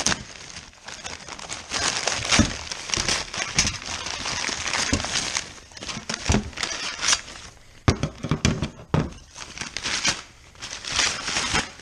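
Packaging crinkling and rustling as the parts of an oil pan baffle kit are unwrapped and handled, in irregular bursts, with a few sharp knocks of parts being set down.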